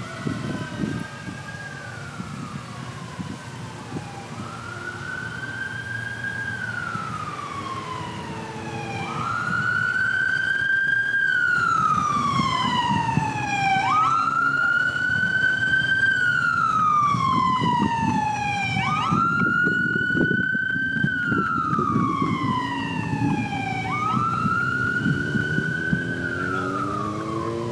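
Fire truck siren wailing in repeated cycles: each one jumps up quickly, holds briefly, then slides slowly down, about every five seconds. It is fainter at first and grows louder about a third of the way in, over a low rumble.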